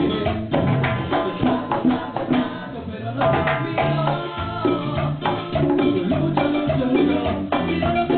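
A band playing a Latin dance tune: percussion and shakers over a moving bass line and pitched instruments, with no singing.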